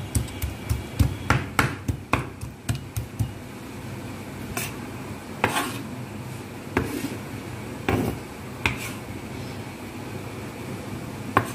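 Kitchen knife chopping chicken, mushrooms, long beans and garlic on a wooden chopping board: quick knocks about three a second for the first three seconds, then slower, scattered strokes.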